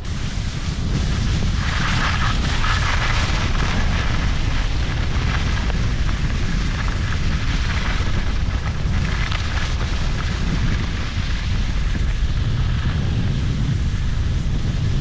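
Heavy wind rumble on the microphone while skiing fast downhill, with the hiss of skis sliding and scraping over packed, groomed snow.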